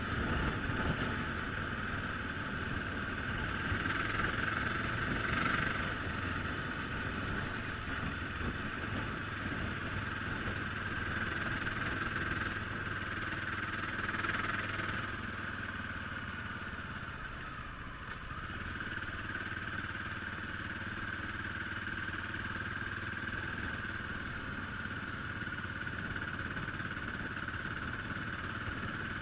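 Motorcycle engine running steadily as the bike is ridden along a road, easing off briefly about two-thirds of the way through.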